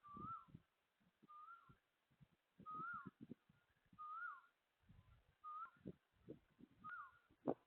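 A bird calling through a CCTV camera's microphone: a short whistled note that rises and then drops, repeated six times at about one and a half second intervals. Uneven low rumbling bursts sound beneath the calls.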